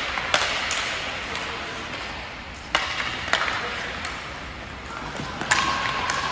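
Hockey sticks clacking against the puck and the ice as a faceoff is taken and play starts: several sharp clacks, spaced a second or more apart, over the noise of the rink and people's voices.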